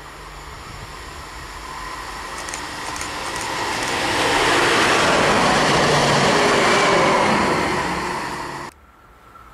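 Electric tram-train approaching and passing close by on the rails, its running noise swelling to a loud, steady pass-by. The sound cuts off abruptly about a second before the end.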